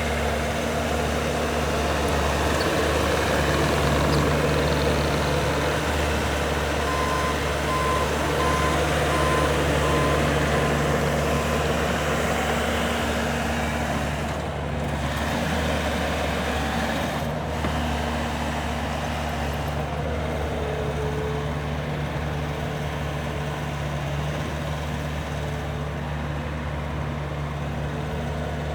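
Diesel engine of a 2017 Bobcat T590 rubber-tracked skid steer running steadily, a little louder in the first half. About seven seconds in, its backup alarm beeps about six times.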